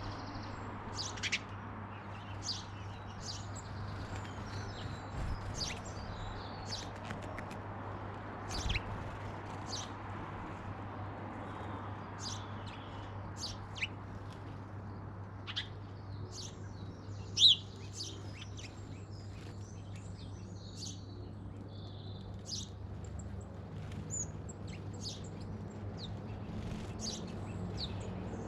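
Garden birds chirping, many short high calls scattered throughout, with one louder chirp a little past the middle, over a steady low hum.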